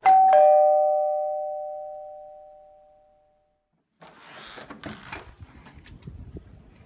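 Two-note ding-dong doorbell chime: a higher note, then a lower one a third of a second later, both ringing out and fading away over about three seconds. From about four seconds in there is rustling and knocking as a door is opened.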